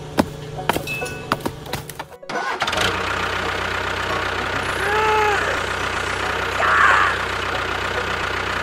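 A few sharp wooden clicks and knocks as sticks clatter onto a log pile. About two seconds in, a steady tractor engine running sound starts with a low hum, and briefly swells twice as the little tractor pulls its loaded trolley through sand.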